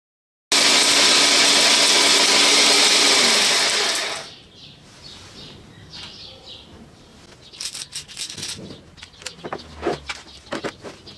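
Homemade rock tumbler's car starter motor running loud with a steady hum, then switched off about three seconds in, the hum dropping in pitch as it spins down and dies away about a second later. Then light clicks and knocks as the jar is handled on the rollers.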